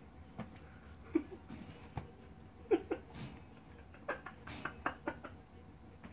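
Pit bull puppy giving a few short, squeaky whines and grunts, mixed with scattered sharp clicks and taps that bunch up in the second half.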